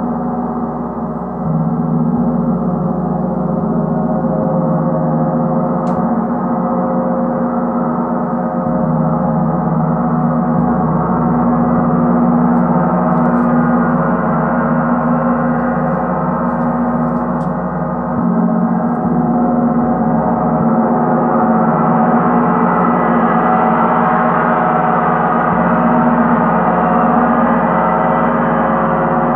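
Paiste 38-inch Sun gong, the deepest-pitched of Paiste's Planet gongs, played continuously with a large Meinl gong mallet. It gives a sustained, dense wash of many overlapping tones. The sound swells with fresh strokes about a second and a half in and again a little past halfway, and grows brighter in the second half.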